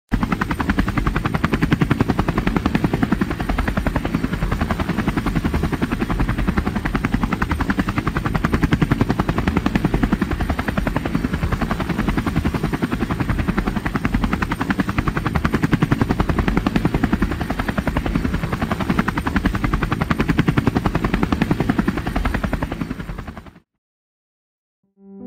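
Helicopter rotor chopping with a fast, steady beat, strongest in the low end. It starts abruptly and cuts off sharply near the end.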